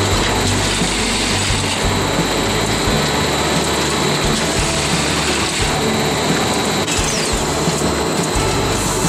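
Automatic paint-roller production machine running, with a steady, dense mechanical clatter from its indexing table and working units.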